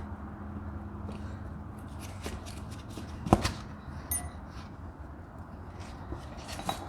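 Metal tools and engine parts clinking during hand work: scattered small clicks, one sharp metallic clank about three seconds in, then a short ringing clink a moment later.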